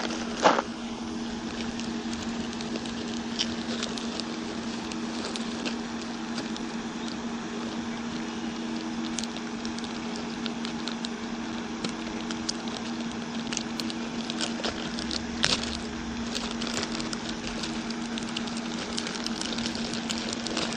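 Steady low motor hum with scattered light clicks and rustles, and a sharper click about half a second in.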